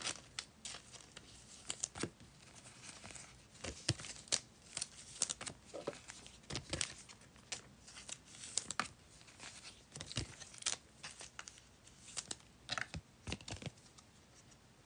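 Trading-card pack wrappers being torn open and crinkled, with scattered sharp clicks and rustles as cards are handled.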